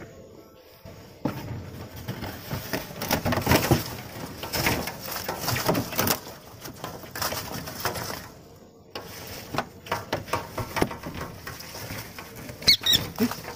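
Dry leaves and cardboard crackling and rustling with irregular knocks as a cabinet is pried open and a trapped kingfisher flaps among the leaves behind the glass. A few sharp, shrill bird calls come near the end.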